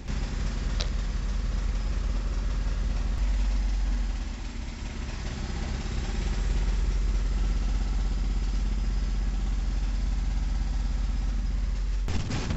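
Steady low rumble, engine-like, that starts abruptly and changes abruptly near the end.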